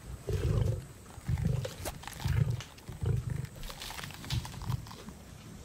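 Lions growling at a kill: a series of short, low growls about a second apart, with small crackling sounds of feeding between them.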